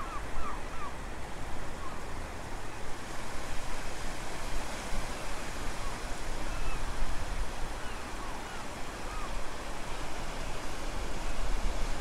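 Surf washing onto a sandy beach, a steady hiss of breaking waves that swells and eases, with a few faint bird chirps now and then.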